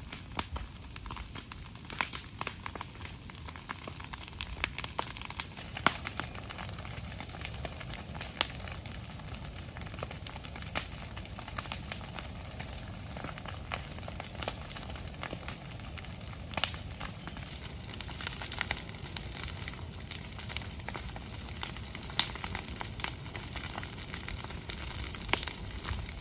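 Steady sizzling with scattered sharp crackles and pops.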